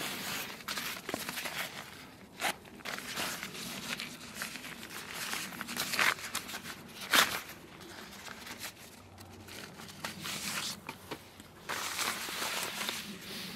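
Rustling and scuffing of nylon rucksack fabric and straps being handled, with scrapes on dry leaf litter. There is one louder sharp noise about seven seconds in.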